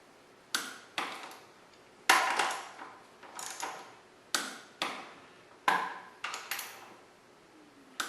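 Sharp metallic clicks of a click-type torque wrench as the front fork pinch bolts are brought to torque. There are about a dozen clicks, several in close pairs, each ringing briefly.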